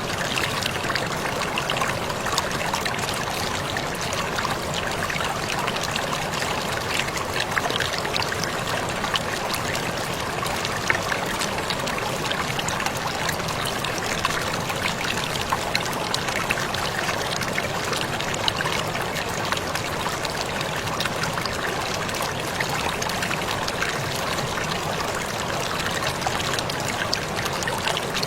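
Waterfall pouring and splashing in a steady, unbroken rush of water, with fine splashing ticks throughout.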